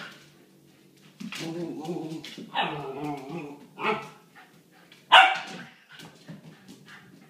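Siberian husky–wolf mix puppy play-growling for about a second, then giving three sharp barks about a second apart, the last the loudest.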